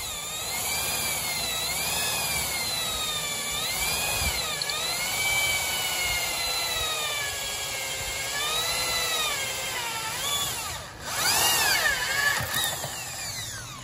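Corded Ryobi electric drill boring a small pilot hole through steel. Its motor whine wavers up and down in pitch as the bit loads and frees, dips briefly near the end, then spins back up.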